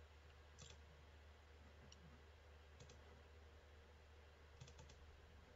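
Near silence with faint computer mouse clicks: a few scattered single clicks, then three quick clicks near the end.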